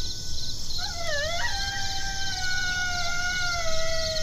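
Coyote lone howls played from an electronic predator call. About a second in there is a wavering, yipping glide, then one long drawn-out howl that slowly falls in pitch. A steady high chirping runs behind it.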